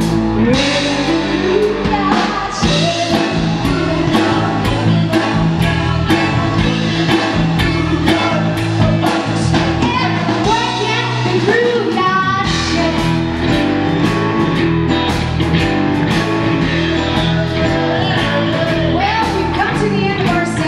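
A live blues band playing: electric guitar, bass guitar, drums and keyboard, with a woman singing over a steady drum beat.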